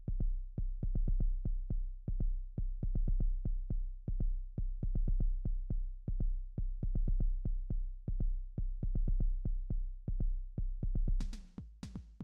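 Background electronic music: a steady pulsing bass beat of about four strikes a second, with sharp high percussion coming in near the end.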